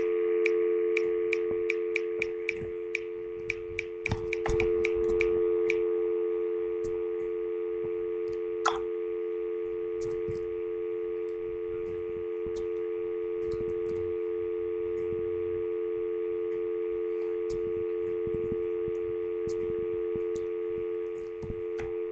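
Landline telephone dial tone: a steady two-note tone held without a break. Light clicks tick over it, about two or three a second for the first six seconds, then only now and then.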